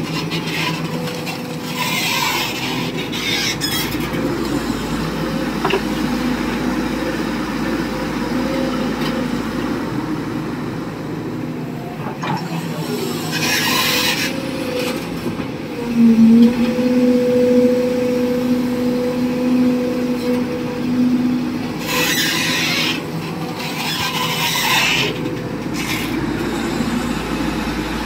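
A hydraulic excavator's diesel engine and hydraulics running steadily under load, with a louder whine for about five seconds past the middle. Three short bursts of high-pitched noise break in, near the start, the middle and toward the end.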